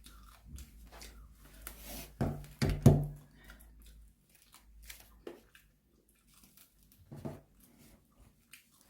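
Hands tearing apart crispy fried chicken, with crinkly crackling and a few louder knocks a little after two seconds, near three seconds and about seven seconds in.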